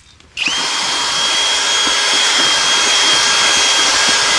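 Electric drill motor spinning up about half a second in and then running at a steady speed with a high whine, typical of a drill-driven mixer stirring groundbait.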